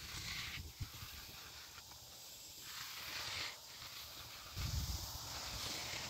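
Bull float gliding over wet concrete, soft hissing swishes as the float is pushed out and drawn back across the slab. A low rumble comes in past the halfway point.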